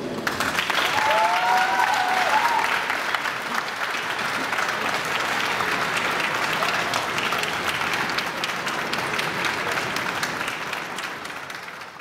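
Audience applauding after a speech, with a brief voice calling out over the clapping about a second or two in. The applause dies away near the end.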